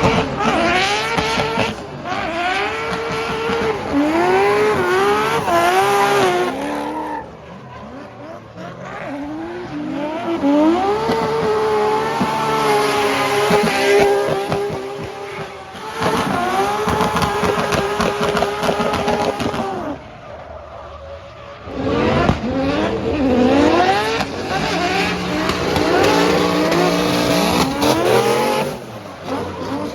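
Nissan Skyline R33's RB26 straight-six drifting, its engine revving up and down over and over under throttle changes, with tyres squealing and skidding. Twice the sound drops away for a couple of seconds before the car comes back loud.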